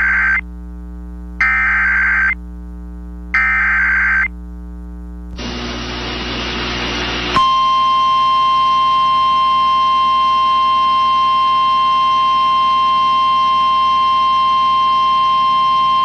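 Emergency Alert System SAME header: three screeching data bursts about two seconds apart, the first already under way. About two seconds of radio static follow, then the steady single 1050 Hz warning alarm tone sounds for about nine seconds. Together they signal the start of a severe thunderstorm warning.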